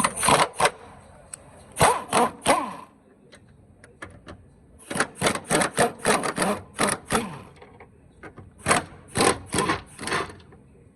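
Ratchet with a 17 mm socket clicking in bursts of quick back-and-forth strokes as engine-mount bracket bolts are loosened, with pauses between the bursts.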